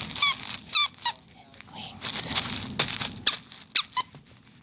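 Squeaky toy inside a wrapped present squeaking several times as the dog works at it: a cluster of short, high, wavering squeaks in the first second and more near the end. Wrapping paper rustles between the squeaks.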